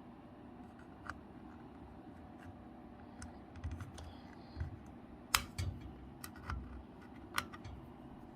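Irregular light clicks and knocks from hands handling a small steel keypad safe and its lock. The sharpest click comes about five and a half seconds in.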